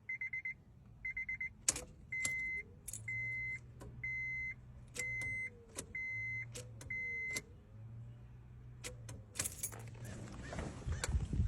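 Electronic warning beeps, quick pulsed ones at first and then longer half-second beeps repeating about once a second, alternating with stretches of low hum and sharp clicks. Near the end comes louder rustling and handling noise.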